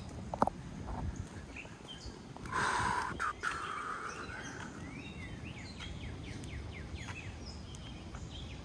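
Outdoor park ambience with a songbird singing a quick run of down-slurred chirps in the second half. A brief harsh, rasping sound comes about three seconds in and is the loudest thing heard.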